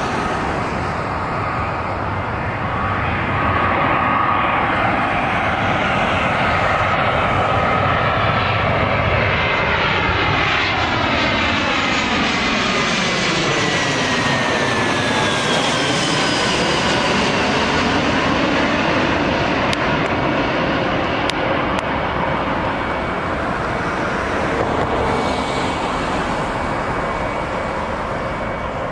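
Twin-engine jet airliner on final approach passing low overhead: steady loud jet engine noise, with a whine that falls in pitch about halfway through as it goes by.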